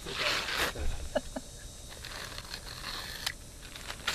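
Asphalt ridge-cap shingle pieces scraped and shuffled by hand on a shingled roof: a gritty scraping rustle strongest in the first second, then quieter handling with a light tap later on.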